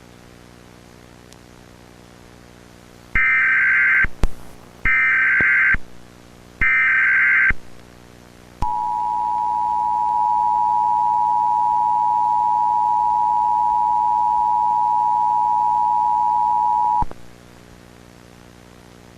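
Emergency Alert System tones: three short bursts of screechy digital header data, then the two-tone EAS attention signal held for about eight seconds before cutting off.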